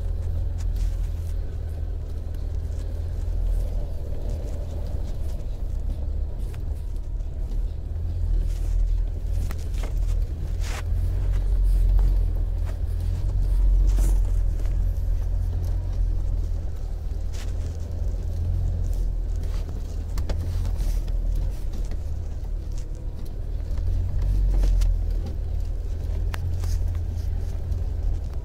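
Steady low rumble of a car driving slowly up a snow-covered road, heard from inside the cabin, with scattered light clicks and knocks.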